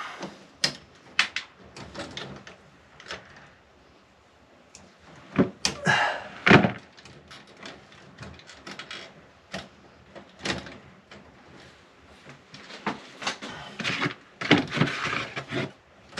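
Irregular clicks, knocks and rustles of hand tools and stiff electrical wires being worked into a wall switch box, with a louder cluster of knocks about six seconds in and another near the end.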